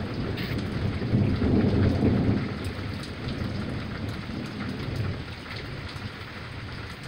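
Thunder rumbling over steady rain during a thunderstorm, the rumble strongest about two seconds in and dying away over the rest.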